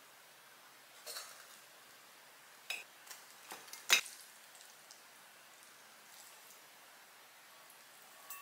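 Ceramic and glass dishes knocking and clinking on a kitchen counter as food is plated: a handful of short knocks, the loudest about four seconds in.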